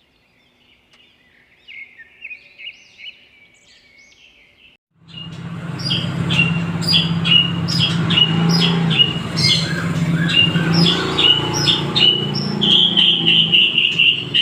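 White-rumped shama (murai batu) singing: faint twittering phrases at first, then from about five seconds in a loud, fast run of sharp, rough repeated chirps and calls, over a steady low hum.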